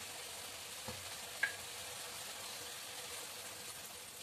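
Mutton curry frying in an aluminium kadai, a steady sizzle with two small ticks about a second and a second and a half in.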